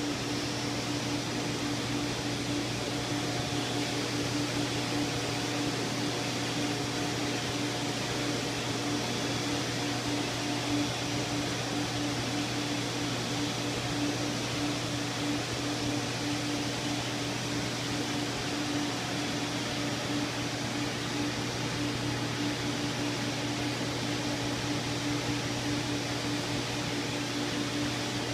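Steady mechanical hum with an even hiss, holding a constant low tone without change throughout.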